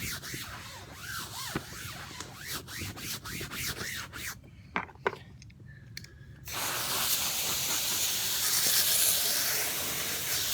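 A window screen being scrubbed with soap in quick repeated strokes. After a short lull with a couple of knocks, a steady hiss of water spraying from a hose starts about six seconds in as the screen is rinsed.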